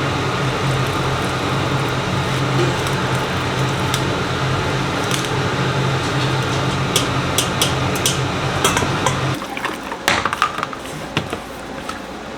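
Kitchen range hood fan running with a steady hum, switched off about nine seconds in. A few clinks of dishes and utensils follow.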